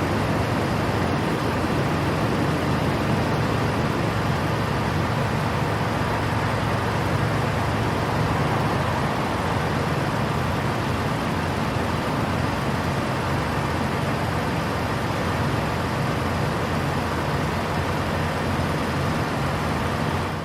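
A Peterbilt 587 semi truck running, a steady diesel drone with an even low hum.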